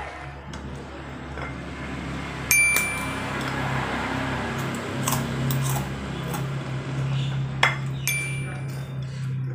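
Glass plate clinking twice as fingers pick food off it, each clink leaving a short high ringing tone, over a steady low hum.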